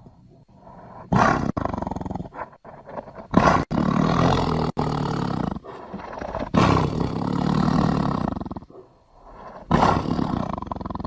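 Big-cat roar sound effects made for the extinct prehistoric cat Panthera shawi: four long, pulsing roars in a row, each starting abruptly, with sudden edit cuts within them.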